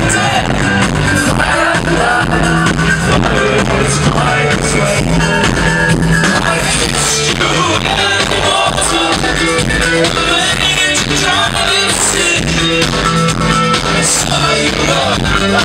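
Live rock band playing loudly, a male lead singer's vocals over electric guitars, bass, keyboards and a steady drum beat.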